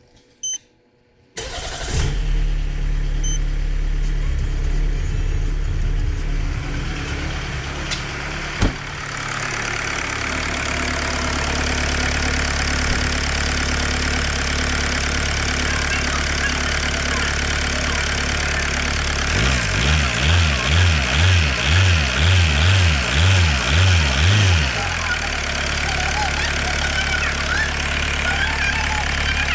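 Mercedes W210's OM611 2.2 CDI four-cylinder diesel starting a little over a second in and running at a steady idle on fresh oil. Past the middle, its sound swells and dips about twice a second for some five seconds, then evens out again.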